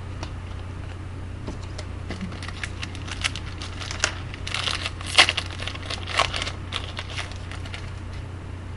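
Hockey card pack wrapper being torn open and crinkled by hand: a run of irregular crackles, sharpest about five seconds in. A steady low hum runs underneath.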